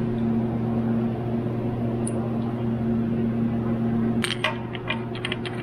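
Quick light metallic clicks and clinks from about four seconds in, as a metal oil cooler and its hose fitting are handled and seated against an engine block. A steady low hum runs underneath throughout.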